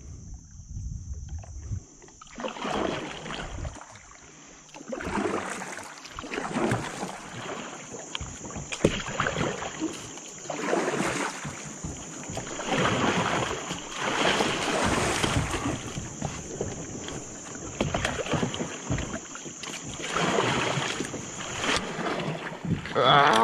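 Kayak paddle strokes splashing in river water, a stroke about every second and a half, alternating blades of a double-bladed paddle.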